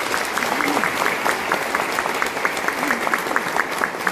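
An audience applauding in a room, a dense patter of many hands with one clapper close by standing out in a steady, quick rhythm.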